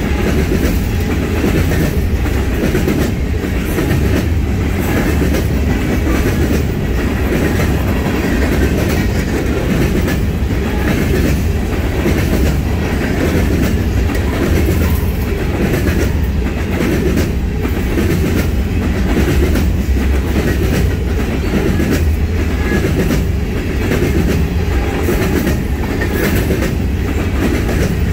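Covered hopper cars of a freight grain train rolling past close by: a steady, loud rumble of steel wheels on rail, with repeated clicks of the wheels over the track.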